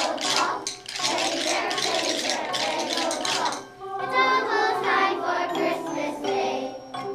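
Children's recital music on hand percussion: a dense jingling and shaking for about three and a half seconds, which then stops, followed by held pitched notes.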